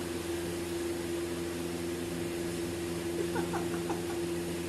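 Steady low hum with an even hiss from running machinery, likely an electric fan motor. Faint voices come in briefly about three seconds in.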